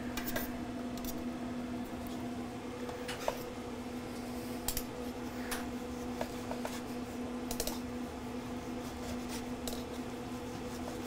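A few irregular clicks and taps of a steel carving knife and fork against a wooden cutting board while a roasted pork loin is sliced, over a steady low hum.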